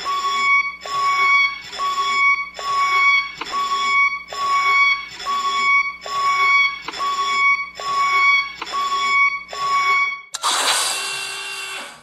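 DeLorean time machine sound effect: an electronic tone pulsing evenly, just under twice a second, for about ten seconds, then giving way near the end to a louder, denser rushing sound with several tones in it.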